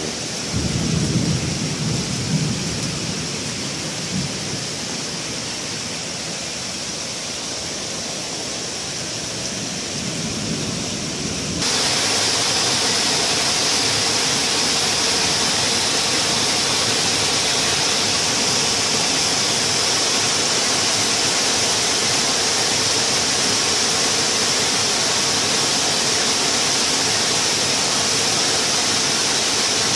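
Torrential downpour: heavy rain hissing, with a low rumble in the first few seconds. About twelve seconds in the sound switches abruptly to a louder, steadier rushing hiss.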